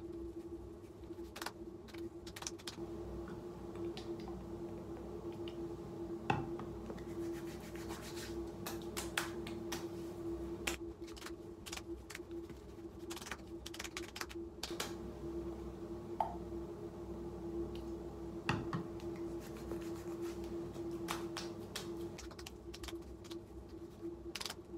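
Hands patting and rubbing skincare product into the face and neck: irregular soft taps and light rubbing of skin, over a steady low hum.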